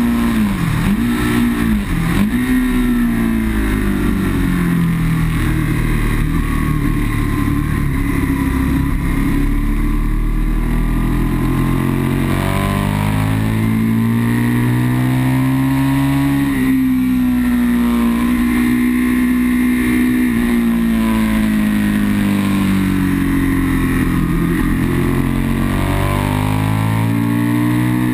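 Aprilia sport bike's engine running hard at track speed, heard from onboard. Its pitch dips sharply twice in the first two seconds, then rises and falls slowly several times with throttle and gear changes.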